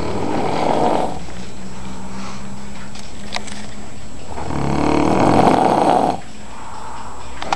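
Snoring: two long snores, the first in the opening second and a louder second one from about four and a half seconds in that stops abruptly near six seconds, with a low steady drone between them.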